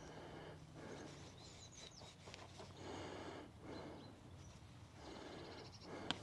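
Faint rustling and scraping of gloved fingers rubbing soil off a small dug-up find, in short strokes about a second apart. A few faint high chirps come about two seconds in, and a single sharp click near the end.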